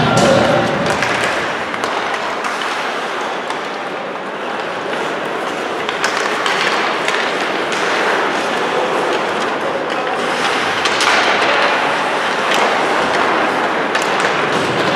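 Ice hockey play: skate blades scraping the ice, with scattered sharp knocks of sticks and puck.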